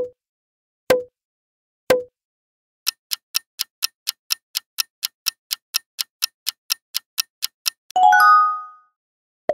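Quiz-game sound effects: three short pops about a second apart as the answer choices appear, then a countdown timer ticking about four times a second for nearly five seconds. A bright chime rings out and fades as the correct answer is revealed.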